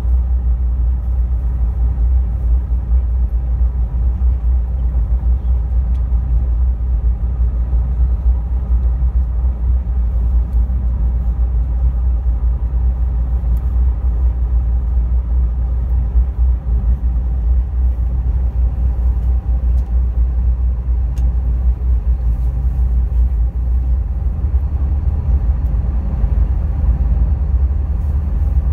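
Engines of a high-speed passenger boat running steadily under way, heard from inside the passenger cabin as a loud, even, deep rumble with a faint hum above it.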